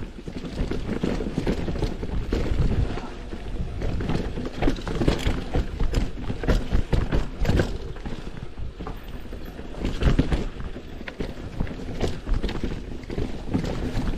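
Mountain bike rattling and knocking over rough, rooty dirt trail at speed, with the low rumble of tyres and suspension on the ground and frequent irregular clatters from the bike's frame and parts.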